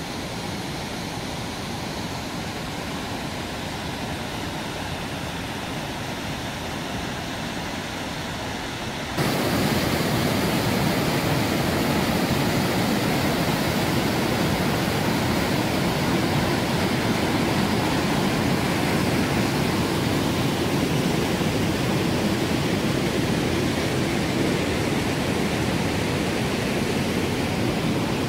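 Triberg waterfall's white water rushing over mossy boulders, a steady roar that jumps louder and fuller about nine seconds in.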